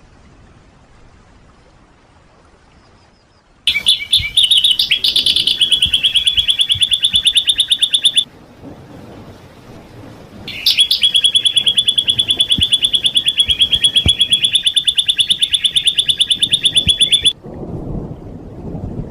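Songbird giving two long, rapid trills of fast repeated notes on a steady high pitch, separated by a pause of about two seconds. This is the kind of close-set rapid 'tembakan' phrasing used in masteran training recordings. A low rumbling noise comes in near the end.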